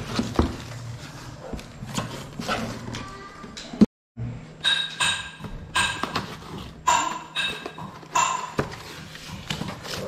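Cardboard boxes being handled and set down on a stone floor: scraping, rustling and knocks. After a short cut about four seconds in, short bright plinking notes come back again and again among the handling knocks.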